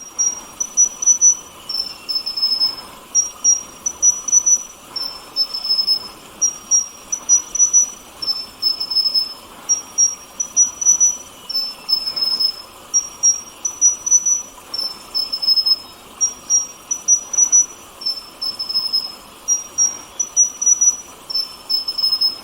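A high, thin two-note call, a higher note followed by a slightly lower one, repeated over and over about every second and a half, over a faint steady hiss.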